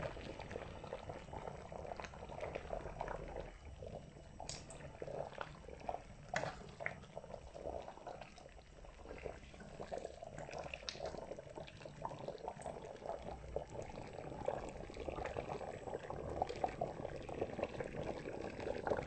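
Thick chicken dalca curry simmering in a pot: a faint bubbling with many small pops and the odd sharper tick.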